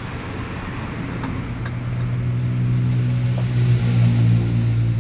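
Mitsubishi PS100 truck's diesel engine running, its speed and loudness rising gradually from about two seconds in and then holding, during engine tuning.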